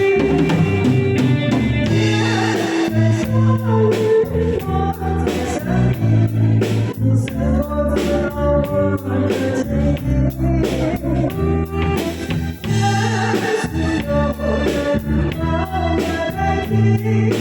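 Backing music of a pop ballad playing between sung lines: a steady drum beat under a lead melody line.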